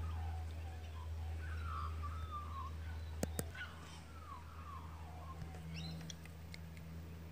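Birds calling in short, wavering, falling phrases, repeated every second or two. Two sharp clicks sound about three seconds in, over a steady low hum.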